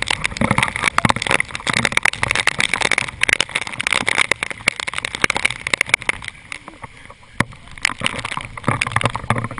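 Storm wind and rain from a tornado buffeting the camera's microphone: a rough, uneven rush full of dense crackling and popping, easing off briefly past the middle before picking up again.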